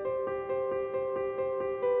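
Instrumental background music: a steady run of repeated notes, about four or five a second, over held tones.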